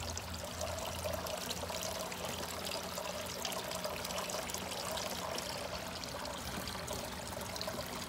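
Water pouring and trickling steadily down the tiers of a clamshell garden fountain, running on its newly replaced pump.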